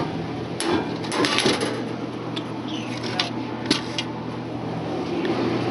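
Scattered clicks and knocks from handling the inside of an open soda vending machine, over a steady low hum.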